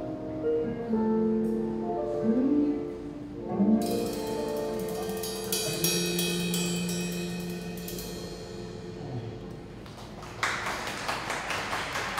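Live band of keyboard, guitars and drums finishing a song: a cymbal crash about four seconds in, then a held final chord fading away. Audience applause starts near the end.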